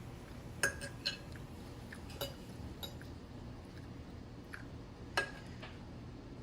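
Cutlery clinking against a plate several times as scrambled eggs are eaten, sharp short clinks with the loudest under a second in and again about five seconds in, over a faint steady hum.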